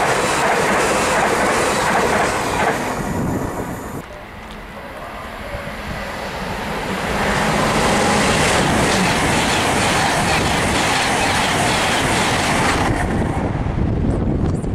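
Great Western Railway Hitachi IET trains running through a station, with the rush and clickety-clack of wheels on rail. The first train's sound fades away about three seconds in. A second train then builds up to a steady loud rush as it passes, and that sound drops off sharply near the end.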